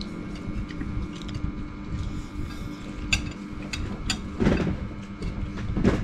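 Metal spoons and chopsticks clinking now and then against china bowls and plates as people eat, over a steady low hum. Two short, louder low sounds come about four and a half seconds in and again near the end.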